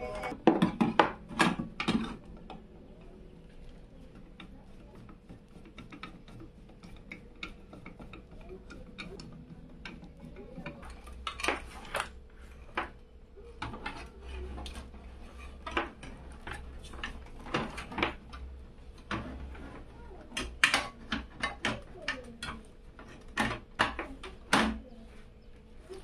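Hands handling PC power cables and plastic cable ties: a run of sharp plastic clicks, taps and rustles, in clusters near the start and again in the last few seconds, over a faint steady hum.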